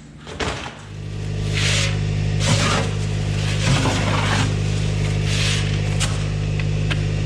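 A machine motor starts up about a second in and then runs steadily with a low, even hum. Several short hissing bursts come over it.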